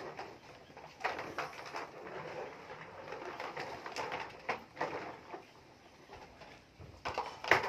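Plastic toy trucks and a toy excavator knocking and clattering on a wooden floor as they are handled: a scattering of sharp knocks, the loudest near the end.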